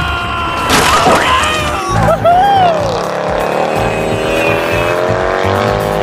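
Dubbed-in cartoon car sound effects: a burst of noise about a second in, then tyre-squeal-like tones that slide up and down, over background music.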